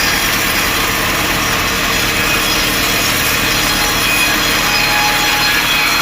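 Sawmill blade cutting steadily through a mahogany log, a continuous rasping saw noise with no pauses.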